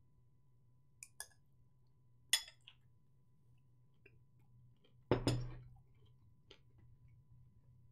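A few light clicks and clinks: two small clicks about a second in, a sharper click a little after two seconds, then a louder knock with a short ring about five seconds in, over a faint steady hum.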